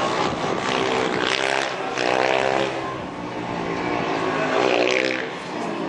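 Formula Student race car's engine revving as the car is driven hard through a bend, its pitch rising and falling twice as the driver accelerates and lifts off.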